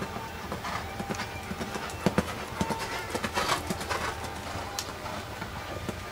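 Horse's hoofbeats on a sand arena at a canter: irregular dull knocks over a steady background.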